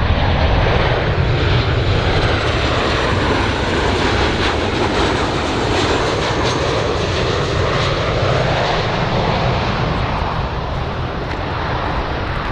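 An airplane's engines running, a loud steady rushing noise that eases slightly toward the end.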